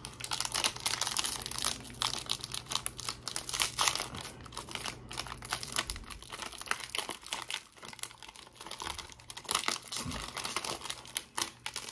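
Pocky snack wrapper crinkling and tearing as it is pulled open by hand, a dense run of crackles with small pauses.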